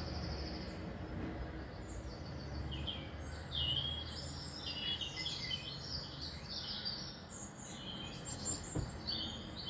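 Small songbirds chirping and twittering from a bird video playing on a television: many short, high chirps, thicker from about two seconds in, over a faint low hum.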